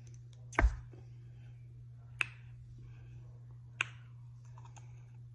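A large paper drink cup set down on a wooden board with one thump, then two sharp mouth clicks about a second and a half apart while eating a soft biscuit, over a steady low hum.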